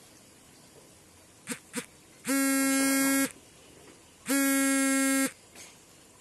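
A low, steady electronic buzzer sounding twice, each buzz about a second long and starting about two seconds apart, after two short clicks.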